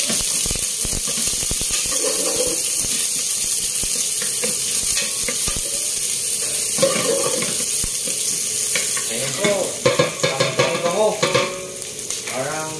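Sliced garlic and onion sizzling in hot oil in a stainless steel pot, a steady frying hiss, stirred with a wooden spoon that scrapes and taps against the pot. About ten seconds in comes a run of sharper knocks.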